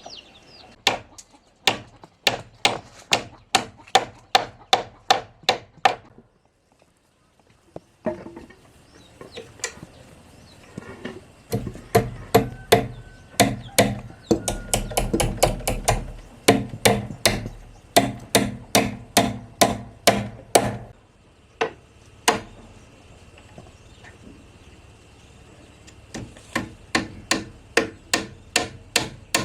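Hammer blows on wood, struck at about two a second in runs with short pauses between them.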